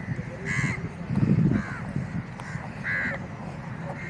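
Crows cawing: three short, harsh caws, the first and last loudest, over a low rumble that swells about a second in.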